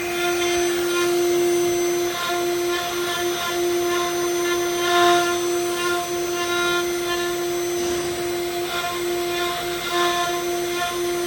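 CNC router spindle running at high speed: a steady high whine that dips briefly several times, over a rushing noise that swells twice.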